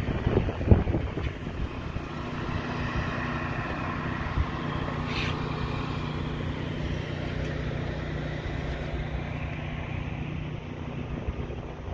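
Steady low machine hum, with wind noise on the microphone and a couple of loud thumps about half a second in.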